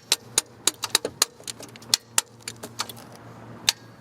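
Sharp, irregular metallic clicks and clinks, several a second, as the jump pack's battery clamps and cables are handled and clipped on, over a steady low hum.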